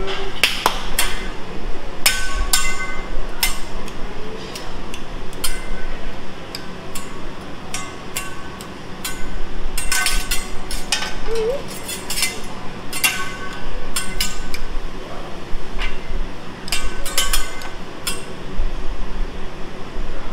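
Hibachi chef's steel spatula and fork striking each other and the griddle in a drumming show routine: quick runs of sharp metallic clanks that ring briefly, with short pauses between runs.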